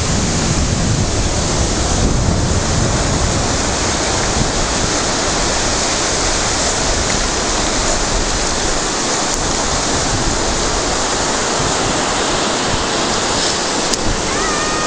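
Steady rush of sea surf breaking and washing up the beach, with a heavy low rumble throughout. Near the end a brief, flat, high tone sounds once.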